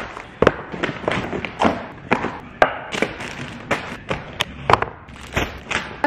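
Groceries being taken out of paper bags and set down on a kitchen counter: an irregular run of thuds and taps, two or three a second, with the rustle of paper bags and plastic packaging between them.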